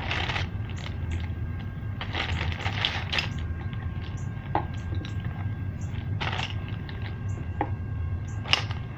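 Clear plastic bag crinkling in bursts as hands rummage through makeup and brushes inside it, with sharp clicks of the items knocking together, the sharpest near the end, over a steady low hum.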